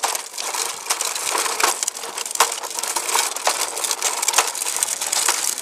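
Plastic wheels of a Fisher-Price baby walker rolling over gritty pavement: a continuous crunching crackle with many small clicks, heard close up through a camera mounted on the walker.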